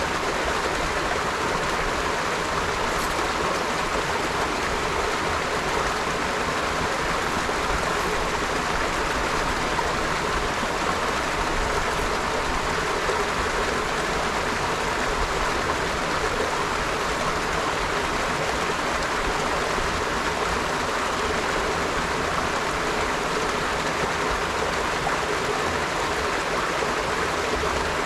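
River water flowing, a steady rushing with no change in level.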